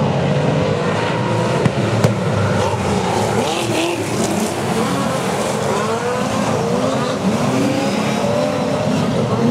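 A pack of speedway saloon race cars racing, their engines revving up and down in many overlapping rising and falling notes. Two short sharp knocks come about two seconds in.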